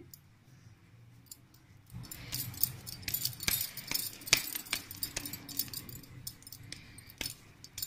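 Bangles clinking and jingling on the wrist as hands squeeze and shape a ball of mashed-potato dough, a run of light irregular clicks starting about two seconds in.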